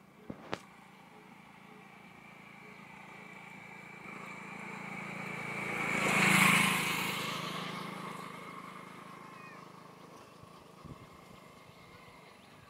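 A motor vehicle approaches and passes by on the bridge. Its engine and road noise build up gradually, are loudest about six and a half seconds in, then fade away.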